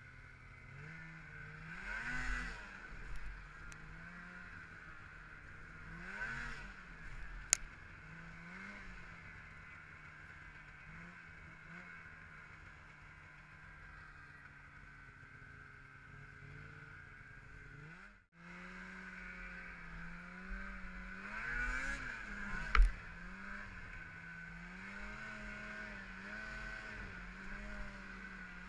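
Snowmobile engine running under way, its pitch rising and falling repeatedly as the throttle is worked, with a couple of sharp knocks. The sound cuts out for a moment about two-thirds of the way through, then the engine carries on.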